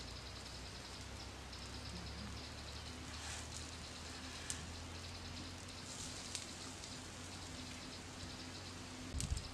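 Small frogs sizzling on a hot stone slab over a wood-ember fire: a steady crackling patter with a few sharp ticks. A short cluster of knocks comes near the end.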